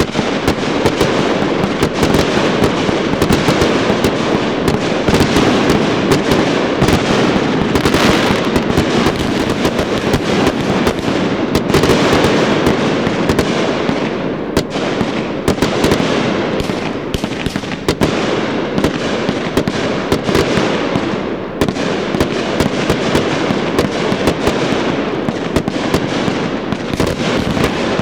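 Fireworks show at full tilt: a dense, continuous barrage of bangs and crackles with many reports a second, hardly a gap between them.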